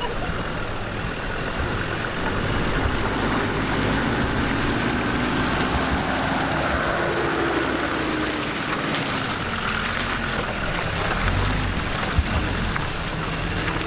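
Off-road 4x4 vehicle engine running steadily under load, its faint pitch rising and then falling near the middle.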